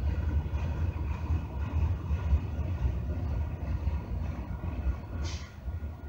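Diesel locomotive approaching with a steady low engine rumble, and a brief hiss about five seconds in.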